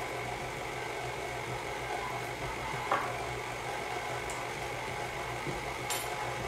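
Stand mixer running steadily at low speed, its motor giving an even hum, as coconut is sprinkled into the cookie dough it is mixing. There are a couple of light ticks, one about three seconds in.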